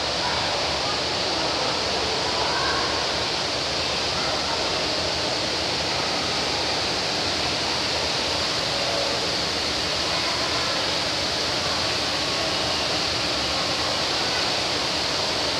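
Steady rush of falling water, an indoor waterfall running without pause.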